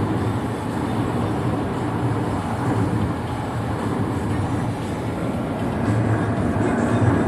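A car driving at steady speed: an even low road and engine rumble.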